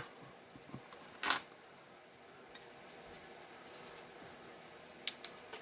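A few light metal clinks and taps as machined parts of an indexer housing are handled and taken off. The loudest comes about a second in, and two quick clicks come near the end.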